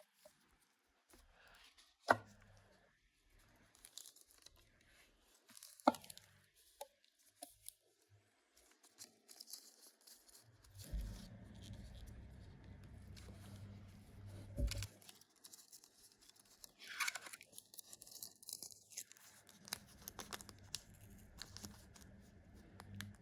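Smartwatch packaging being opened and handled: tearing and crinkling of wrapping, with two sharp clicks in the first six seconds.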